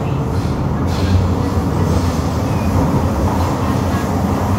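Nippon Sharyo C751B metro train running, heard from inside the passenger car: a steady low running noise of wheels and motors on the track.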